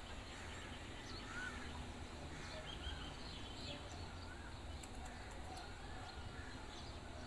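Faint background birds chirping now and then over a low steady ambient hum.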